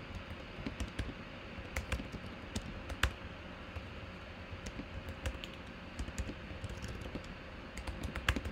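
Typing on a computer keyboard: irregular key clicks, with a louder stroke about three seconds in and a few near the end.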